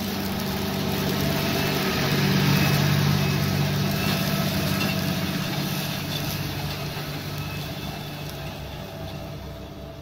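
New Holland T7.235 tractor's six-cylinder diesel engine working under load as it pulls a plough through hard ground, getting louder as it passes close about two to three seconds in, then fading away.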